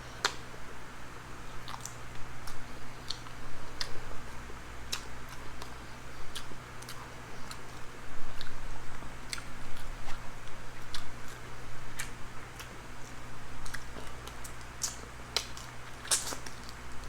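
A person eating: chewing and lip-smacking, with many scattered sharp clicks and a brief cluster of louder clicks near the end, over a low steady hum.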